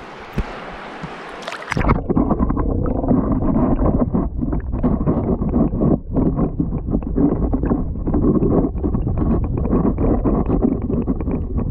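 Mountain stream heard from a camera held underwater. A little under two seconds in, the open rush of the water cuts off abruptly into a muffled, low churning of current with the high end gone.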